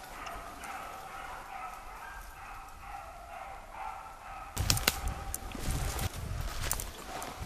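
A pack of basset griffon vendéen hounds giving tongue in the distance, long overlapping baying cries as they work a trail. About four and a half seconds in, close footsteps crunching through snow and crackling brush take over as the loudest sound.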